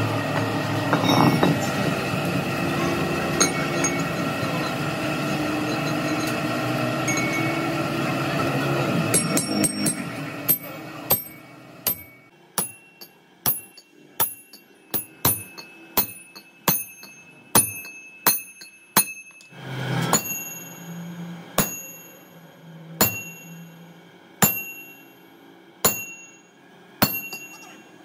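A steady machine drone with several held tones, which stops about ten seconds in. Then a hammer strikes a steel bar held with pliers on a tractor bull gear: about twenty sharp metal blows, roughly one a second, each ringing briefly, with one heavier, longer blow about two-thirds of the way through.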